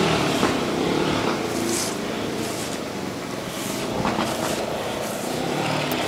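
Strong wind rushing through garden plants and over the microphone, a steady noisy rush that swells and eases.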